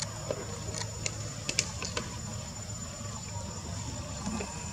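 Ambience: a steady high-pitched whine over a low rumble, with a few sharp clicks in the first two seconds.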